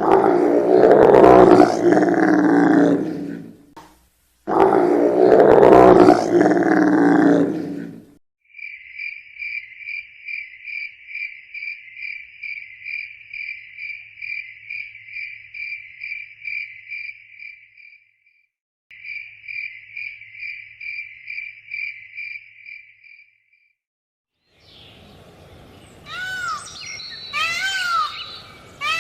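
Two long, loud animal roars, like those of a big cat. Then a high, steady insect chirping of about three pulses a second, with a brief break midway. Bird calls come in near the end.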